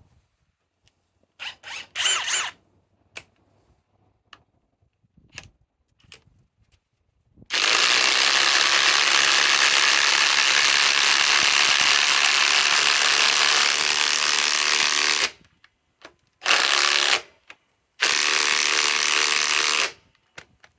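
Cordless impact wrenches hammering 5-inch lag screws in at speed 3: a few light clicks at first, then a long run of about eight seconds, a short burst, and a final run of about two seconds.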